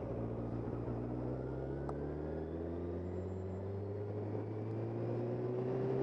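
Suzuki GSX750F motorcycle's inline-four engine pulling steadily in one gear, its note rising slowly as the bike gains speed, heard from on the bike while riding.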